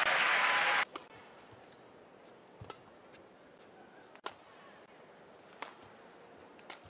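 Loud arena crowd noise cuts off abruptly just under a second in. A badminton rally follows: rackets strike the shuttlecock with sharp cracks about every second and a half, five in all, over quiet hall ambience.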